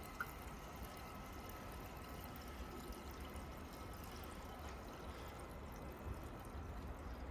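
Gasoline pouring steadily from a fuel can into a machine's fuel tank as it is being filled up.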